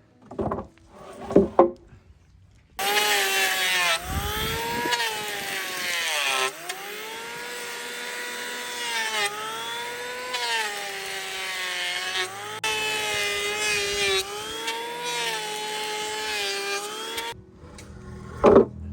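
Two knocks, then a power tool starts and cuts into wood for about fourteen seconds, its motor pitch sagging and recovering repeatedly under load, before it stops suddenly.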